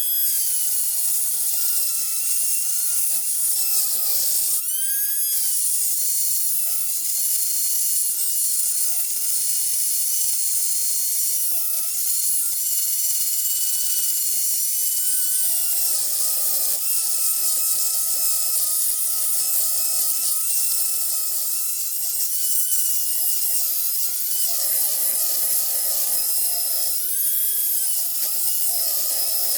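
High-speed rotary grinder running continuously, port-matching the intake ports of a Chrysler 318 cylinder head to a 340/360 port window. Its high-pitched whine sags in pitch as the bit is pressed into the metal and rises again when eased off, with a sharp rise about five seconds in.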